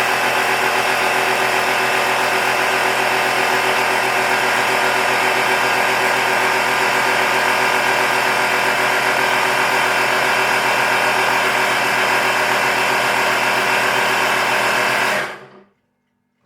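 Air compressor pump running steadily, building the air horn tank up toward maximum pressure, then cutting off suddenly about fifteen seconds in.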